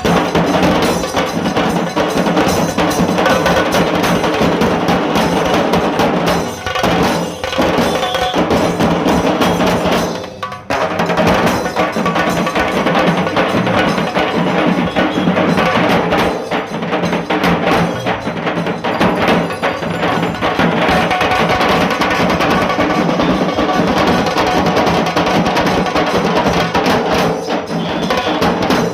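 Dhol tasa drum ensemble playing fast, loud stick beats on tasa and dhol drums, with a short break about ten seconds in.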